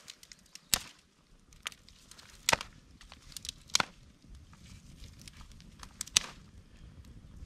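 Dry firewood snapping: about seven sharp cracks at irregular intervals, four of them much louder than the rest. A low rumble comes in underneath about halfway through.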